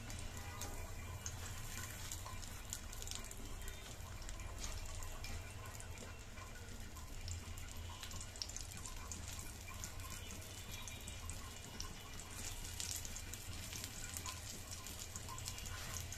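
Oil sizzling and crackling around two stuffed egg parathas shallow-frying in a pan, a steady stream of fine pops, with a steady low hum underneath.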